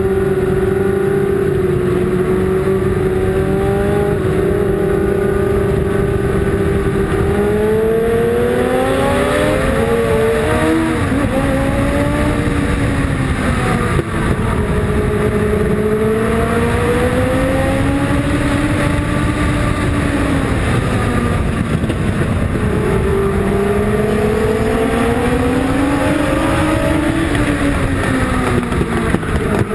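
Race car engine heard onboard at racing speed, holding a steady pitch for several seconds, then rising and falling again and again as the driver accelerates and lifts through the laps, over a steady rush of road and air noise.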